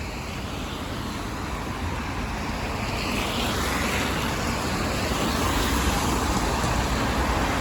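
Road traffic on a rain-wet street, the tyre hiss building gradually louder over the first few seconds as vehicles pass.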